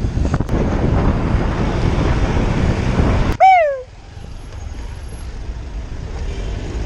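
Wind buffeting the microphone while a bicycle is ridden fast through traffic, with a low rumble of road noise. About halfway through, one short, loud call cuts in, falling in pitch over about half a second.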